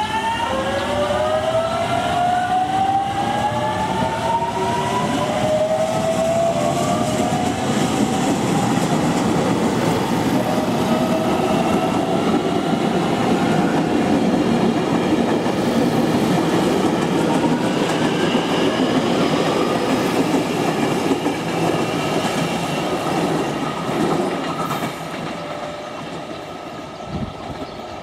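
JR Kyushu 813 series electric multiple unit running past, its inverter-driven traction motors giving a whine that rises slowly in pitch over the first several seconds, over a steady rumble of wheels on rail with clickety-clack over the joints. The sound drops away about 25 seconds in as the train leaves.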